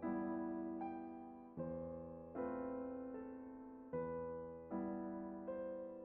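Background music of slow keyboard chords, a new chord struck about every 0.8 seconds and left to fade before the next.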